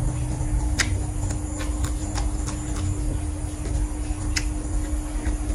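Close-miked chewing with scattered soft mouth clicks, over a low rumble and a steady faint hum.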